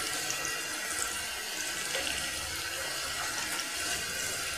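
Sliced onions sizzling in hot oil in an aluminium pressure cooker: a steady frying hiss with light crackles.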